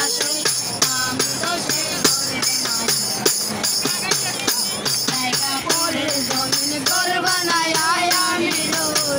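A girl singing a song into a handheld karaoke microphone, accompanied by a tambourine struck in a steady rhythm, its jingles ringing throughout.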